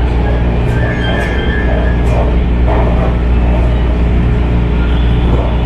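MARTA heavy-rail train running at speed, heard from inside the car: a steady low rumble of wheels on rails with a constant motor hum.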